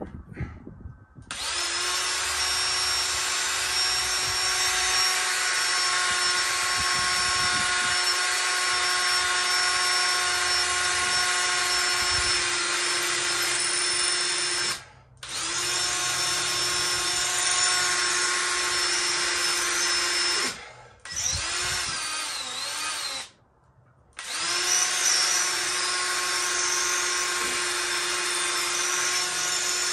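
Cordless drill running under load, drilling a pilot hole overhead into the concrete-block wall for a Tapcon masonry screw. The motor's steady whine runs in long stretches, stopping briefly three times.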